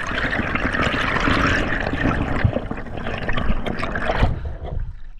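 Water rushing and bubbling over an underwater action camera as a freediver swims, thick with small ticks and pops. About four seconds in, as the camera breaks the surface, it turns to a quieter, duller wash.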